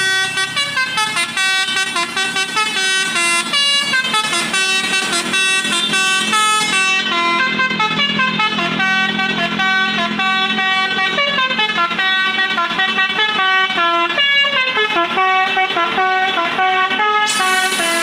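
Tour bus telolet musical air horn playing a tune. It opens with a quick run of short stepped notes and then moves to longer held notes.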